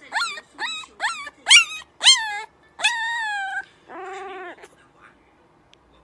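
Puppy whining and yipping: about six quick, high calls that sweep upward, then one longer falling whine and a lower, wavering howl-like call.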